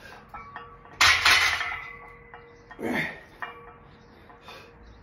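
Cast-iron weight plates on a loaded barbell clanking sharply against each other about a second in, ringing on briefly, with smaller clinks and rattles of the plates and bar through the press.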